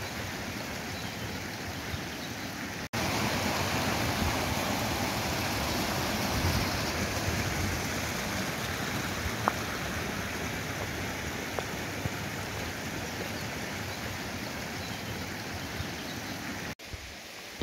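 Small mountain stream running over rocks: a steady rushing hiss that jumps louder about three seconds in and drops back near the end.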